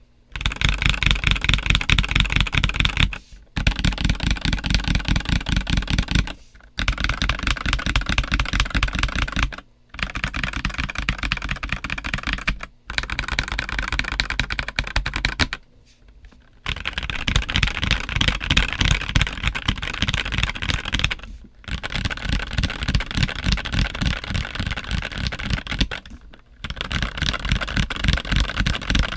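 Typing on an MK870 mechanical keyboard fitted with a polycarbonate plate, PCB-mounted stabilizers, JWK Black linear switches and DCX black-on-white keycaps. Fast, continuous keystrokes come in runs of about three to five seconds, broken by brief pauses.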